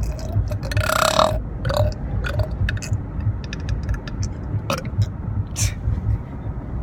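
A person burping loudly about a second in, followed by a couple of short, smaller burps, then a few scattered clicks over a steady low rumble.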